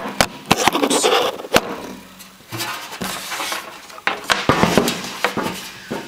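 Sheet-metal casing of an electric heater knocking and rattling as its panels are handled and fitted back together: a string of sharp metal knocks with some scraping between them.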